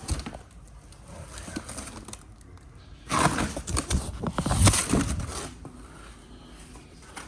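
Handling noise as a boxed alloy wheel is moved about: rustling with clicks and a few dull knocks, loudest from about three to five and a half seconds in.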